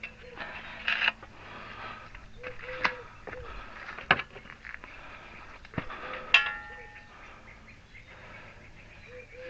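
A few separate metal knocks and clanks from hand tools on car parts, a second or more apart. The loudest comes about six and a half seconds in and rings briefly with a metallic tone.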